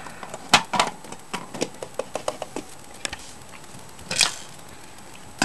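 Irregular light clicks and knocks of plastic fire-alarm parts and the camera being handled, with a sharper knock about half a second in and a short rustling burst about four seconds in.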